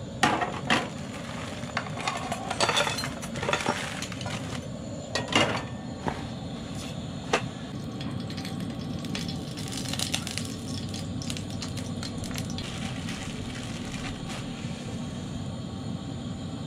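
Pots, pans and utensils clinking and knocking as food is handled for cooking, with a cluster of sharp knocks in the first half and only a few after. A steady low rushing noise runs underneath.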